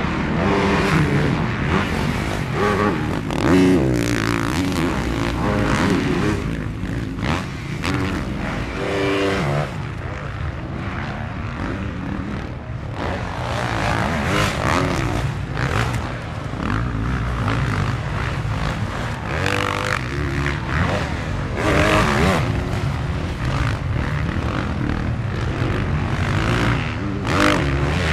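Motocross bikes lapping a track, their engines revving up and down over and over as riders accelerate, shift and pass, with several bikes heard at once.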